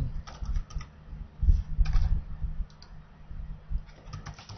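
Computer keyboard keys clicking in short, irregular runs of typing over a low steady hum.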